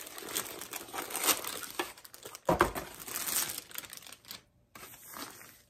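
Plastic packaging crinkling and rustling as a plastic-wrapped compact umbrella is handled, with irregular crackles and a single dull thump about two and a half seconds in.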